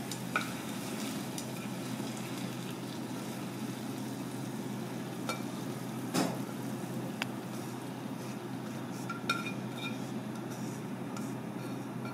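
Chopsticks clicking and scraping against a pan and a ceramic bowl as a stir-fry is pushed out of the pan, a handful of sharp clinks spread out over a steady low hum.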